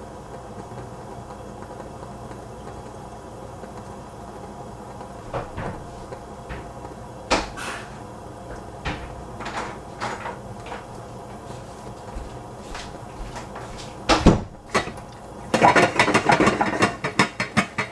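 First kernels of popcorn popping one at a time inside a lidded stainless steel pan heating on a gas burner, a sharp pop every second or so over a steady low hiss. About fourteen seconds in there is one loud knock, then the pan is shaken on the burner grate and the kernels and lid rattle in a quick clatter.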